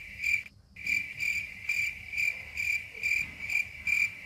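Cricket-chirp sound effect: short, high chirps about two a second, with a brief gap near the start.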